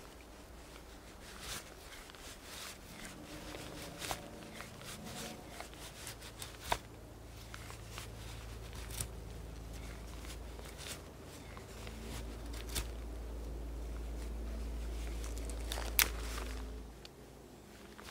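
Fixed-blade bushcraft knife carving a feather stick from a split stick of dry wood: irregular scraping strokes and sharp clicks as curls are shaved off. Under them runs a low steady hum that cuts off suddenly near the end.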